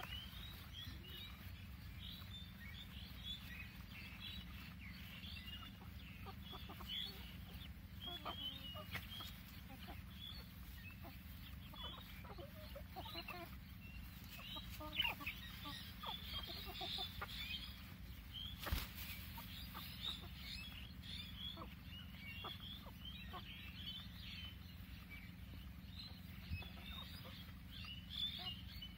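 A flock of chickens clucking and calling softly while feeding, many short calls overlapping throughout. Two sharp knocks stand out near the middle.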